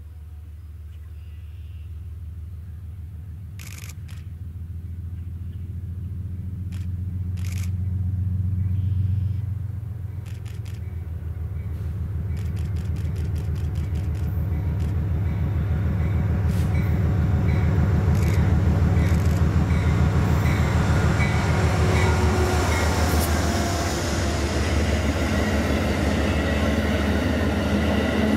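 Amtrak passenger train approaching and passing: a low rumble grows steadily louder over the first twenty seconds, then the rush and wheel-on-rail noise of the passing passenger cars.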